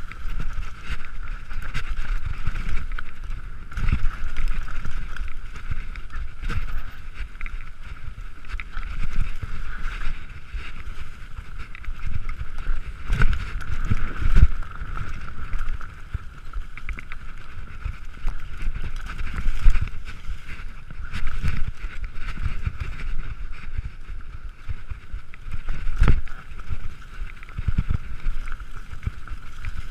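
Mountain bike descending a rough trail, heard from an on-board camera: wind buffeting the microphone, with thumps and rattles as the bike jolts over bumps, the heaviest about halfway when it rides over wooden planks, all over a steady high-pitched hum.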